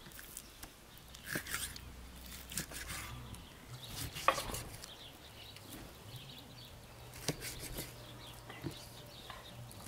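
Kitchen knife cutting raw organ meat on a wooden tree-stump chopping block: soft slicing with scattered sharp knocks of the blade on the wood, the loudest about four seconds in.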